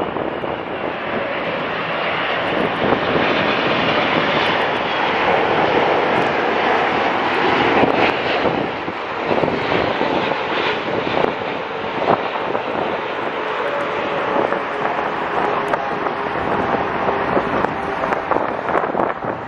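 Air France Boeing 777-200's twin GE90 turbofans on final approach, a steady rushing jet noise as the airliner passes low overhead toward the runway.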